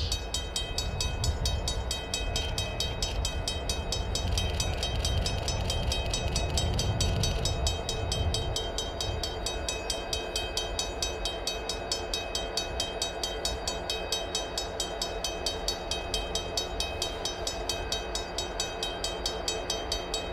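Diesel locomotives of a Wisconsin & Southern lash-up rumbling as they approach slowly, with a bell ringing in quick, even strikes throughout. The engine rumble is heaviest over the first several seconds.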